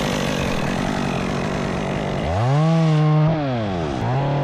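Two-stroke chainsaw running under load, then revved up and let back down twice, each rev held for about a second.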